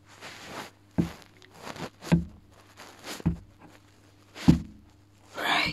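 Four dull thuds on a floor, evenly spaced about a second apart like slow footsteps, with soft rustling close to the microphone between them and a louder rustle near the end.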